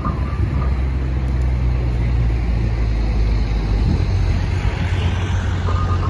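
Road traffic: the steady low rumble of a motor vehicle engine running.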